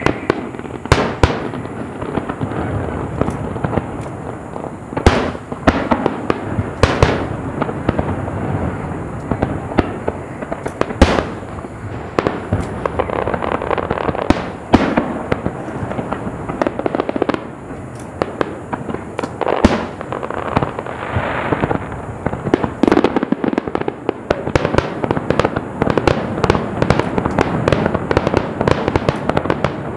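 Aerial fireworks display: a continuous crackle and rumble of bursting shells, with frequent loud sharp bangs at irregular intervals.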